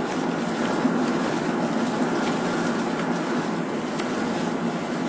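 Steady driving noise heard inside a vehicle's cabin: tyres hissing on a rain-soaked road together with the engine, with a few faint ticks.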